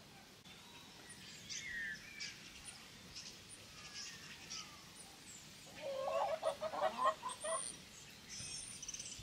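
Domestic hens clucking as they forage, with a quick run of clucks about two-thirds of the way through. Small birds chirp in the background.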